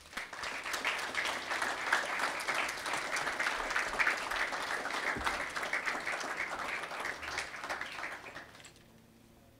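Audience applauding for about eight seconds, dying away near the end.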